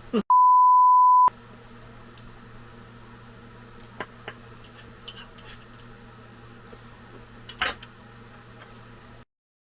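A loud, steady one-second bleep at about 1 kHz, an edited-in censor beep that replaces the original audio. After it comes a low steady hum with a few short clicks and knocks. The sound cuts to dead silence shortly before the end.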